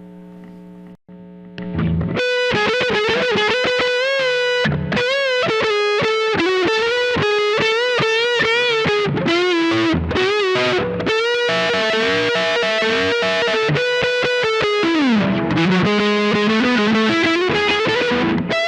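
Distorted electric guitar playing a single-note lead solo with string bends and wide vibrato, starting about two seconds in. It is a Squier Paranormal Offset Telecaster with its Lollar Royal T neck pickup and bridge pickup wired in series, driven by a Bookworm Effects Diving Belles distortion pedal.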